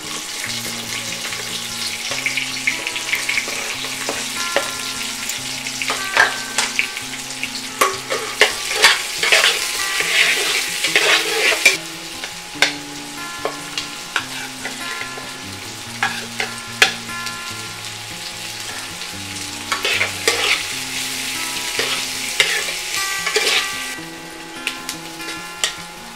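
Ginger, red onion and garlic sizzling as they sauté in oil in a stainless steel pot, with a utensil stirring and clinking against the metal, most busily between about six and twelve seconds in and again around twenty seconds in. Soft background music with a slow, stepping bass line underneath.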